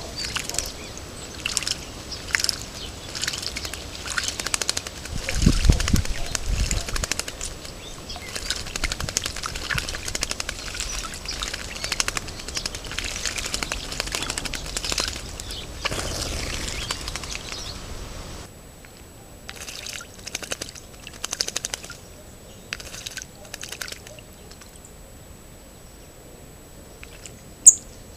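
Song thrush bathing in a shallow water basin, splashing and flapping its wings in the water in quick runs of splashes, sparser in the last third. A low rumble comes about six seconds in, and a single sharp click near the end.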